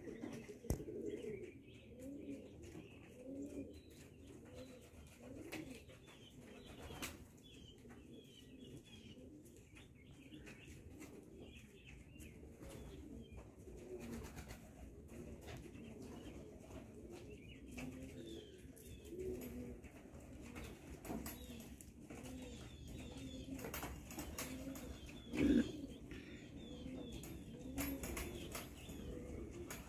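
Homing pigeons cooing over and over, with faint higher chirps now and then and one brief, louder thump near the end.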